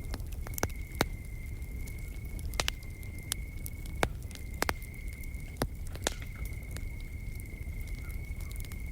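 Wood fire crackling, with irregular sharp pops over a low steady rush. Under it, an insect keeps up a continuous trill at one high pitch, broken off briefly a few times.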